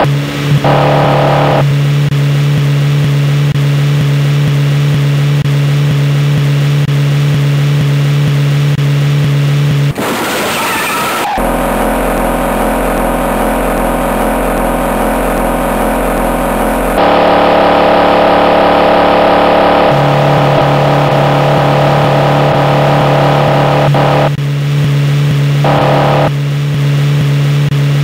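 Dubbed car engine sound effect: a steady high-revving engine note. About ten seconds in, a brief noisy burst gives way to a lower, different engine sound for several seconds, and then the first note returns.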